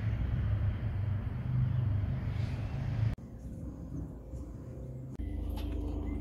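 Outdoor background noise with a steady low rumble. It cuts off abruptly about three seconds in to a quieter ambience, and a low rumble returns about five seconds in.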